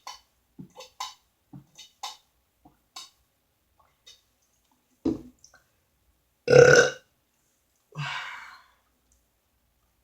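A woman eating with quick wet mouth smacks, then a short burp and, just over a second later, a louder belch lasting under half a second. A softer breathy exhale follows.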